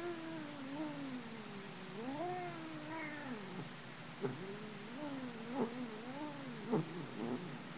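Domestic cat meowing in long, wavering yowls that rise and fall in pitch. One drawn-out call fills the first few seconds, then comes a run of shorter calls with sharp starts.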